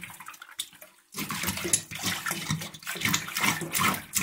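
Water splashing in a stainless steel sink as a descaler is scraped along a sea bass held underwater, with the tap running. It is quieter for the first second, then comes as a run of repeated splashy scraping strokes.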